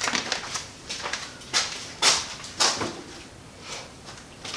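A few light knocks and clatters at irregular intervals, things being handled and set down.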